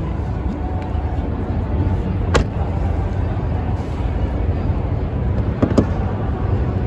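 Steady low rumble of a large indoor hall's background noise. A sharp click comes about two and a half seconds in, and two knocks follow close together near the end.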